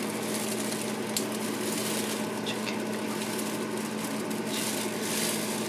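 Steady low hum of room tone with faint rustles and a few light clicks.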